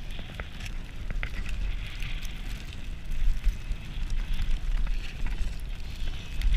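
Wind buffeting the microphone and the hiss of a snow tube sliding fast down a snowy slope, with a few light knocks about a second in.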